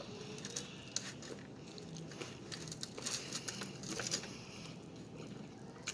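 Close-miked eating sounds: scattered small crunches and crinkles, with short clusters of clicks now and then.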